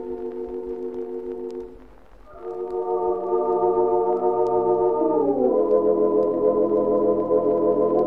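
Wurlitzer theatre organ playing held chords in a slow ballad. The sound drops away briefly about two seconds in, then a new chord swells up and slides down into the next chord about five seconds in. Faint record-surface clicks run underneath, from an old recording transferred from LP.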